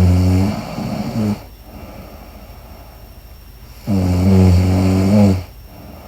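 A sleeping woman snoring: two loud, droning snores about four seconds apart. The first is already going at the start and trails off about a second and a half in; the second runs from about four seconds in to about five and a half.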